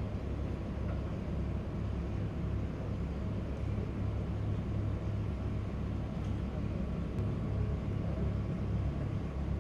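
Steady low outdoor rumble with no distinct event standing out.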